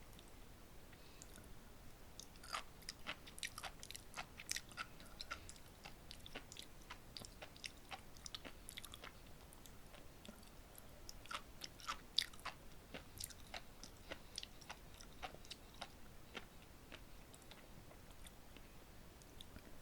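Close-up chewing of sea grapes (umibudo seaweed), the tiny beads popping and crackling in the mouth in quick runs of small sharp pops.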